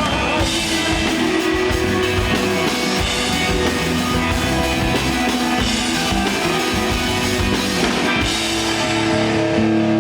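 Desert rock band playing live: electric guitar, bass and drum kit. About eight seconds in the drums stop, and held guitar and bass notes ring on as the tune closes.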